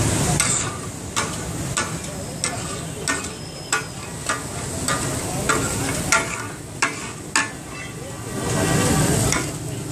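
Takka tak being made on a large round iron griddle: two steel spatula blades strike and chop the meat against the hot plate in a steady rhythm, about one and a half clanks a second, over the sizzle of the frying meat. Near the end the clanking stops and a louder rush of noise takes over.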